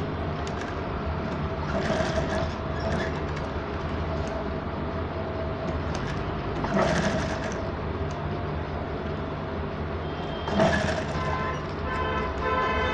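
Table-mounted sewing machine running steadily, stitching a velvet lace patch onto a neckline, its motor humming, with a few brief knocks.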